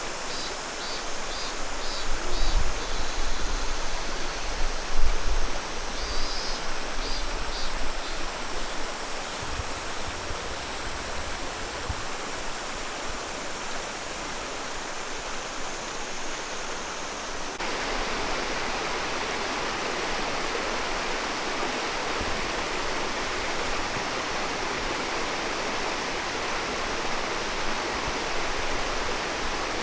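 Steady rush of running water in a mountain gorge, with low rumbling in the first several seconds; about eighteen seconds in the rush becomes louder and brighter.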